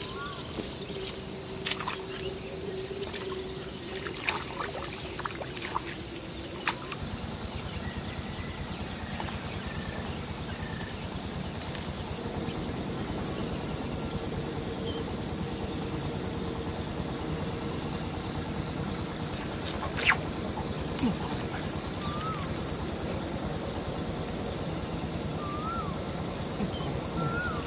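Steady high-pitched drone of insects, unbroken throughout, over a faint low hum. A few light clicks and knocks are scattered through it, the sharpest about twenty seconds in.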